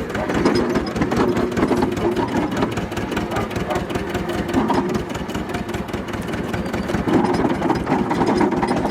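An engine running steadily at a fast, even beat.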